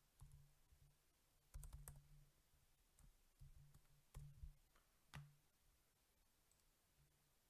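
Faint computer keyboard keystrokes, a few scattered taps and clicks over the first five seconds, then quiet.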